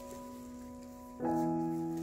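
Soft background piano music: a held chord fading, then a new chord struck a little past halfway.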